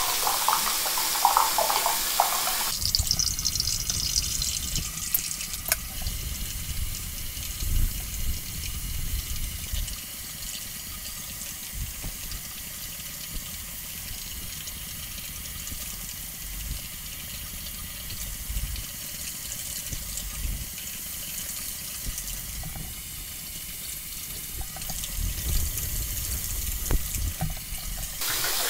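Water running from a bathroom faucet into the sink, loud for the first three seconds, then turned down to a softer flow that comes up again near the end. Under it, irregular rubbing and scraping as a Harry's cartridge razor is drawn over a lathered scalp.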